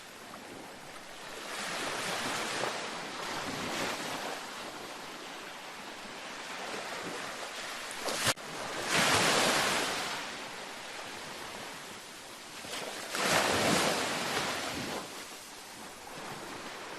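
Ocean surf breaking on a beach: three waves wash in and fade, about five seconds apart, the second and third the loudest. A brief sharp click comes just before the second wave.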